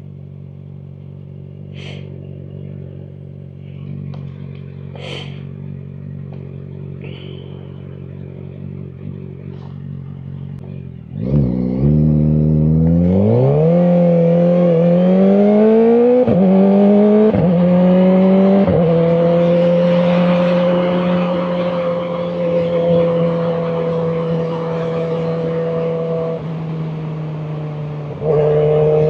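Kawasaki Ninja ZX-4RR's inline-four through a Graves aftermarket exhaust, idling steadily, then about eleven seconds in pulling away hard, its pitch climbing through several quick upshifts before settling to a steady cruise. It eases off near the end and picks up again.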